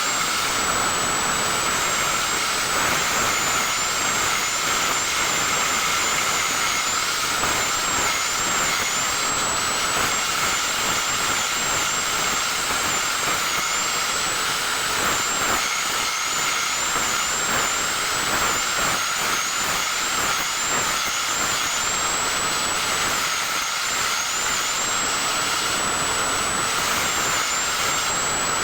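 Small electric power tool running continuously, a steady rushing noise with a high whine that sags briefly many times and a steady lower tone beneath it.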